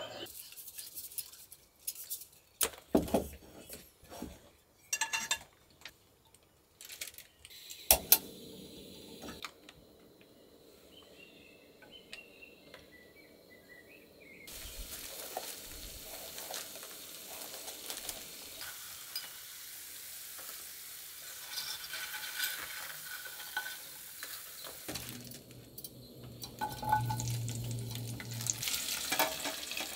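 Camping cookware being handled, with clinks and knocks, then about halfway through the steady sizzle of food frying in a pan sets in and keeps going, with occasional knocks of stirring near the end.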